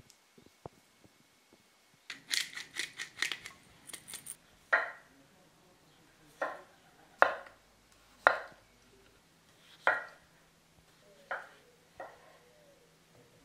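Kitchen knife slicing raw potatoes into rounds on a wooden cutting board: a quick run of crisp cuts about two seconds in, then single cuts with the blade knocking the board every second or so.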